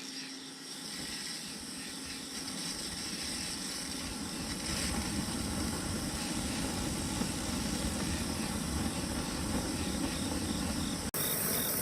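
Forced-air propane burner firing: a steady rushing hiss of gas and blower air with a low combustion rumble that builds gradually, then changes abruptly just before the end.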